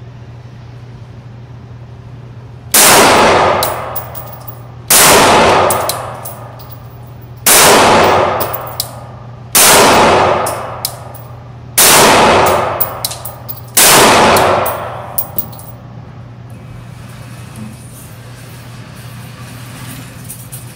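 Six shots from a Glock 19 9mm pistol, fired about two seconds apart. Each one rings out and decays over about a second.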